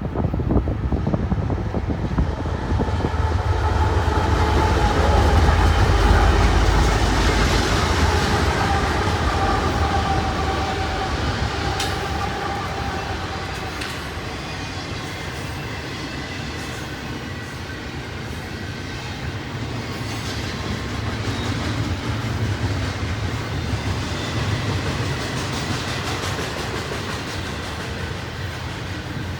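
A diesel-led intermodal stack train passing. The locomotives' low rumble swells to its loudest about six seconds in, then the container cars roll by steadily with clicking wheels.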